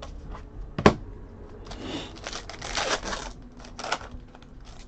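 Trading cards and a pack wrapper being handled: a sharp click about a second in, then rustling and crinkling as a card pack is opened and sorted.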